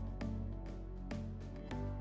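Background instrumental music with a steady pulse, a new note about twice a second.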